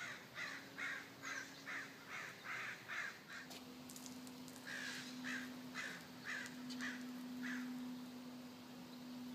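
A bird calling over and over in short, evenly spaced calls, about two to three a second, breaking off for a second or so midway and then resuming; a steady low hum runs underneath.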